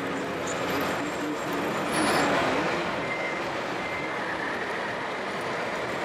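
Radio-controlled model construction machines and trucks running over a steady hall din, with a wavering mechanical tone early on and a short louder hiss about two seconds in.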